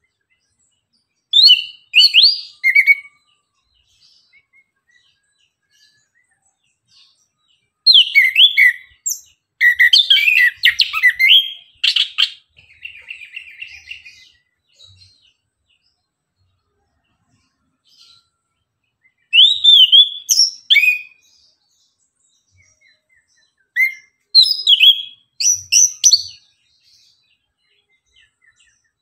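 Chestnut-capped thrush singing in loud bursts of quick, varied high whistled phrases separated by pauses of several seconds, with a short rapid rattle after the second burst.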